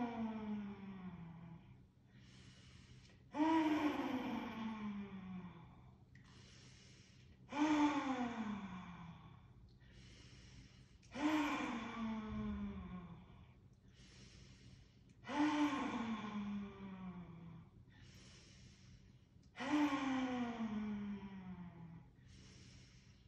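A woman doing the yoga lion's breath: a loud open-mouthed 'haaa' exhalation with the tongue stuck out, its pitch sliding down as it fades over about two seconds. It comes five times, about every four seconds, each one after a quick breath in.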